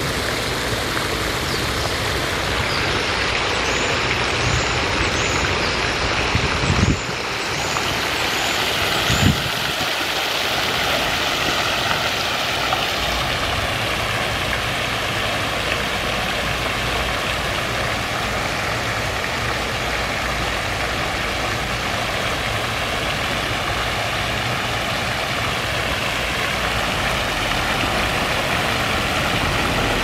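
Steady rushing splash of a small outdoor fountain's spray jets, mixed with the running of road traffic and vehicle engines.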